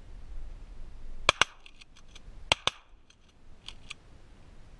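Shotgun blasts: four shots in two quick pairs, about a second apart. Fainter sharp clicks follow.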